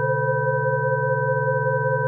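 Electronically generated sine tones: several steady pure pitches held together without change, over a low, rapidly fluttering hum. This is a Rife frequency track.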